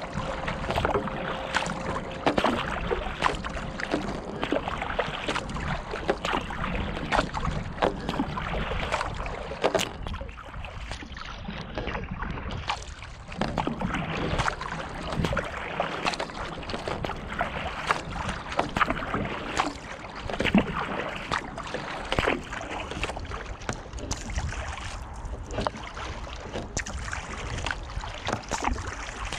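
Water splashing and washing along the bow of a kayak as it moves through calm water, close up, with many irregular short splashes and drips.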